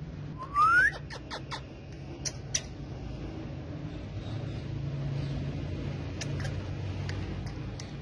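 Indian ringneck parakeet calling: a rising whistle about half a second in, the loudest sound here, then a few short sharp chirps over the next two seconds and fainter ones near the end, over a low steady hum.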